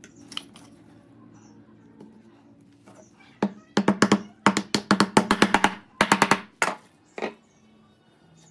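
Wooden mallet driving a glued wooden strip down into a slot in a pine table leg: a run of sharp wooden knocks in quick bursts of several blows, starting about three and a half seconds in and ending with two single taps.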